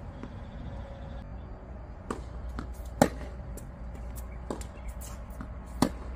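Tennis ball rally: sharp pops of a racket striking the ball, the two loudest about three seconds apart, in the middle and near the end, with fainter hits and ball bounces on the hard court in between.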